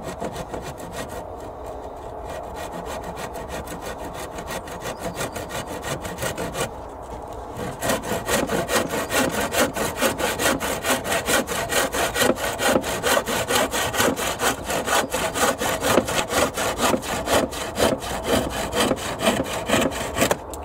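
Handsaw cutting through a wooden fence picket with steady back-and-forth strokes. The strokes are lighter at first, stop briefly about seven seconds in, then resume faster and louder.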